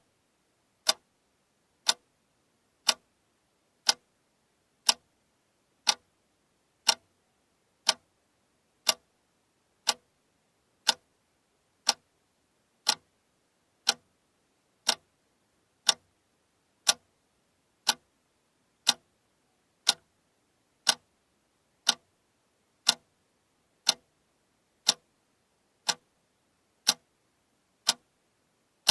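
Alarm clock ticking steadily, one sharp tick each second.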